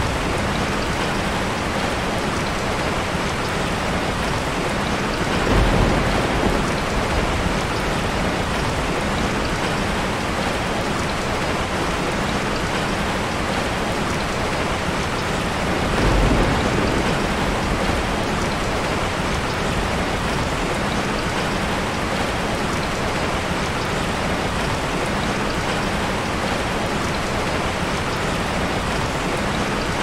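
Steady rain falling, a dense even hiss. Two brief low rumbles swell up about five and sixteen seconds in.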